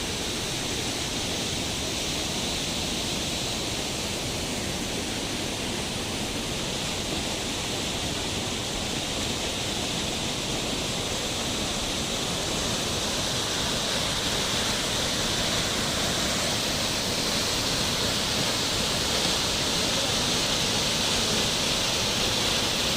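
Waterfall: a steady rush of falling water that grows a little louder over the second half.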